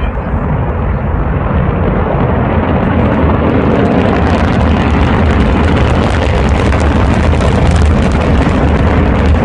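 Rocket launch rumble: a dense, crackling roar with a deep low end that builds gradually and stays loud, with no single sharp boom.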